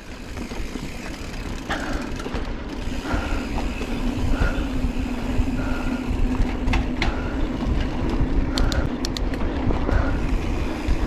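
Mountain bike rolling fast over a dirt singletrack, with wind rumbling on the helmet-mounted microphone and a steady hum underneath. A short run of sharp clicks and rattles comes about two-thirds of the way through.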